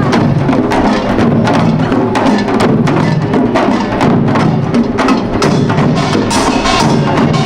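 Korean pungmul percussion ensemble playing Imsil Pilbong nongak: small gongs, hourglass drums and barrel drums struck in a fast, dense, unbroken rhythm.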